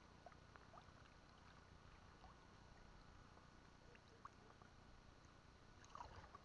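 Near silence: faint outdoor ambience with a few scattered faint short chirps and ticks, and a brief soft sound about six seconds in.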